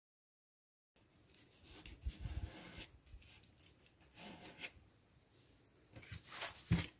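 Hands rubbing and pressing folded cardstock to smooth down a strip of tape: paper rustling and rubbing with a few light taps, starting about a second in, and a sharper knock near the end.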